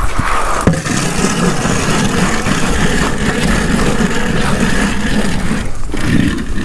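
An engine running steadily, coming in just under a second in and dropping away near the end.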